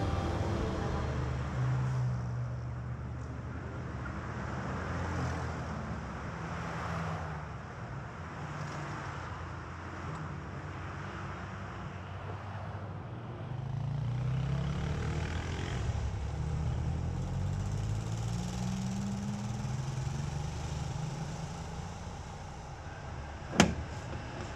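Street traffic, with the engines of cars and buses running. Twice about halfway through, an engine rises in pitch as a vehicle accelerates. A single sharp knock sounds near the end.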